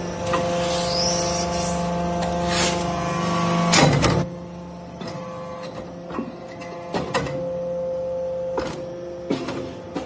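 Hydraulic briquetting press for iron chips running: a steady machine hum and whine with several held tones, louder for about the first four seconds and then dropping in level, with short clunks and knocks through it.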